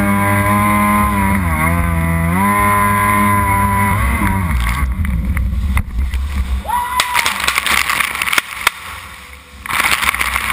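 Kawasaki X2 jet ski's two-stroke engine running hard with a steady buzzing note that dips and climbs back about two seconds in, then drops away about four and a half seconds in. Spray and splashing water then take over, with a brief rising rev of the engine near seven seconds and a loud rush of water near the end.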